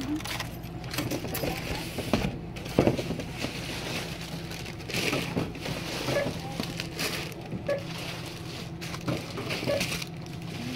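Rustling and crackling handling noise from a hand-held phone rubbing and knocking as it is carried, with scattered clicks over a steady low hum.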